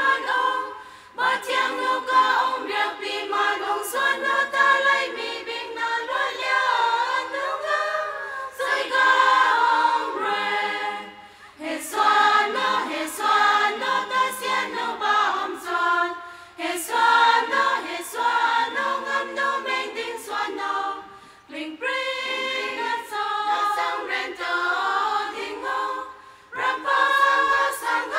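Women's choir singing unaccompanied, in long held phrases with short pauses for breath between them.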